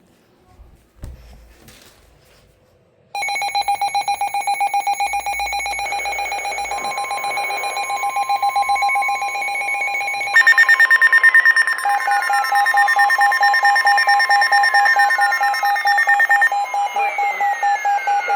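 Weather radio warning alarms going off together. A rapid pulsing beep starts about three seconds in, and a steady tone joins it. A higher beep comes in about ten seconds in, followed by falling chirps roughly every second and a half. The alarms signal an incoming warning broadcast, here a flash flood warning.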